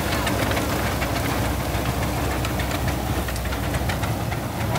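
Large vintage steel-wheeled tractor's engine running steadily under load while pulling a gang plow, with a repeating knocking beat over a low drone.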